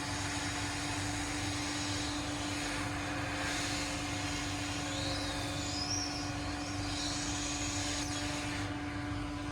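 Hot air rework station blowing steadily on a phone's charging port to melt its solder joints, a constant whirring hiss over a steady hum.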